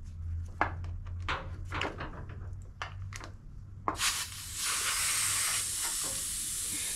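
Light clicks and knocks as the small front caster tire of a zero-turn mower is turned and its valve stem handled. About four seconds in, a steady hiss of compressed air starts through an air-hose tire inflator with a dial gauge on the valve, as the tire is aired up to about 30 psi.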